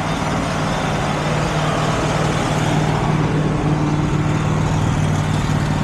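Portable band sawmill's engine running steadily with a constant low hum.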